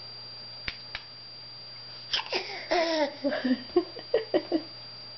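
A baby's short babbling and giggling sounds, rising and falling in pitch, over about two and a half seconds in the second half, with one breathy burst among them. Two sharp clicks come about a second in.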